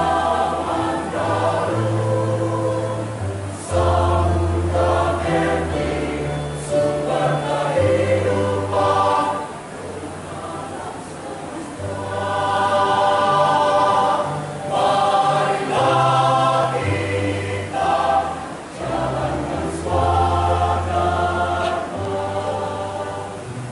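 A choir singing in parts, with steady low bass notes underneath that change every second or two, and a softer passage about ten seconds in.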